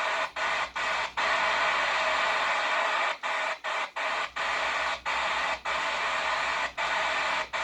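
CB radio receiver static on the Quad 5 radio: a steady hiss of band noise broken by about a dozen brief dropouts, typical of backscatter skip coming and going on the band.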